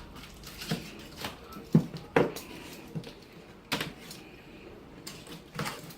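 Irregular clicks and knocks of a monitor's shipping box and its packing being handled and pried at while it is opened, about one or two sharp knocks a second.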